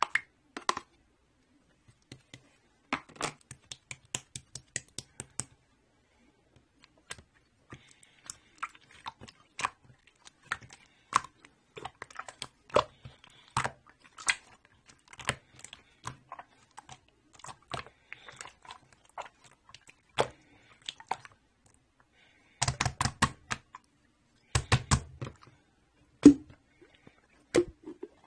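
Irregular, close-up clicks and crunchy crackles, some coming in quick clusters, with short pauses in between.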